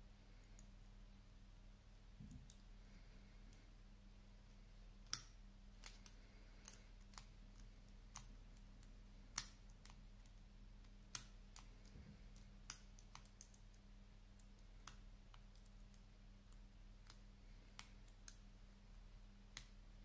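Scattered sharp clicks of a four-wheel combination padlock's number wheels being turned by hand while the shackle is pulled, as the lock is decoded by feel; a dozen or so clicks at uneven intervals, a few much louder than the rest.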